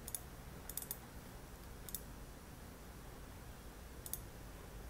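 Computer mouse clicking a handful of times at irregular intervals: a single click, a quick run of three or four clicks just under a second in, then single clicks about two seconds and about four seconds in, over a faint steady low hum.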